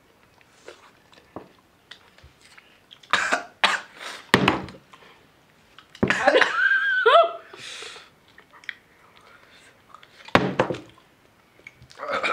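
A person coughing in several separate fits, with a strained, wavering vocal cry about six seconds in.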